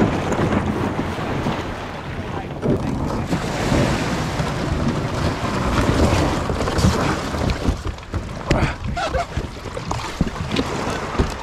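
Small waves breaking and washing over a pebble beach and around a kayak's hull as it is launched through the shorebreak, with wind buffeting the microphone. A few short knocks come in the second half.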